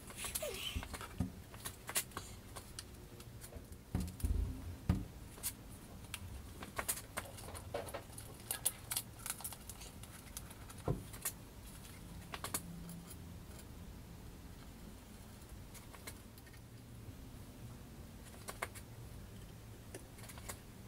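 Small hardware parts and plastic bags being handled during bench assembly: scattered light clicks and rattles of small metal pieces, like loose screws in a bag, with a few dull knocks on the bench about four seconds in.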